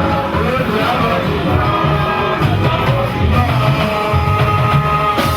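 Music with a regular bass beat, guitar and singing voices.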